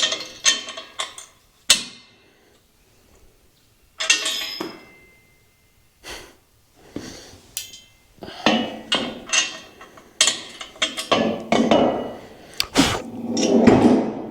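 Metal sawmill parts and hand tools clinking, tapping and knocking in irregular bursts as they are handled during assembly, busier in the second half.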